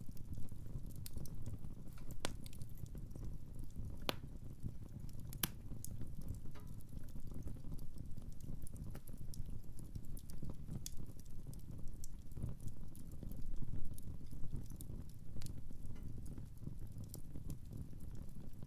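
Wood fire crackling in a fireplace: irregular sharp pops and snaps, a few louder ones in the first six seconds, over a steady low rumble.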